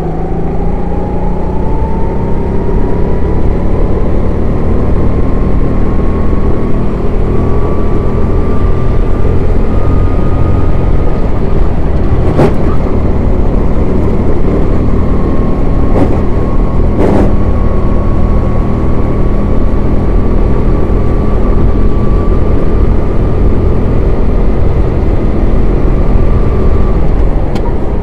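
Racing kart engine at full throttle on a lap. Its note climbs steadily over the first ten seconds, drops briefly around the middle, then climbs again, over a dense low rumble. Three sharp knocks come about halfway through.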